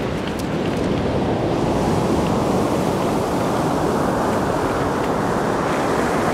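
Ocean surf washing onto a sandy beach: a steady rush of noise that swells slightly about a second in.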